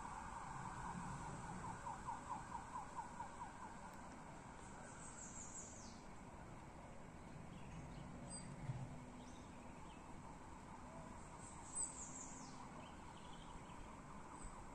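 Faint outdoor ambience with bird calls: a quick series of pulsed notes for the first few seconds, then two brief high descending trills, over a steady thin high whine.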